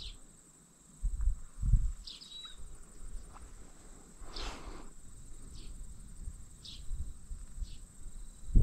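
Insects calling: a steady high-pitched buzz with short chirps about once a second. A brief rustle about halfway through, and a couple of low thumps about a second in.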